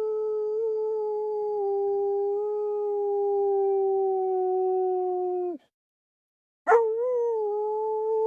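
Dog howling: one long howl whose pitch sags slowly and breaks off about five and a half seconds in, then after a second's pause a second, wavering howl starts sharply and carries on.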